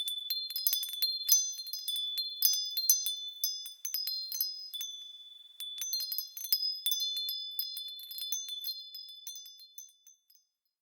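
Wind chimes struck irregularly and often, each strike ringing on in high, clear tones. The strikes thin out briefly about halfway through, pick up again, and the ringing dies away near the end.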